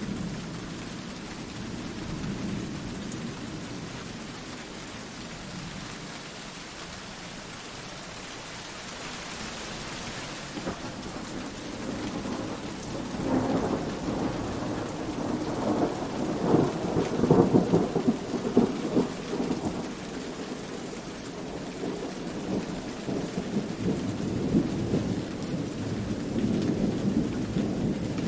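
Steady rain with rolling thunder. A long rumble builds about halfway through, crackles at its loudest, then eases back into a lower rumble.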